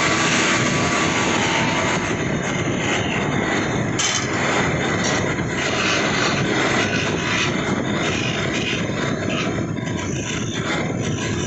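Wood lathe running, a steady whirring noise of the motor and turning stock, with a short click about four seconds in.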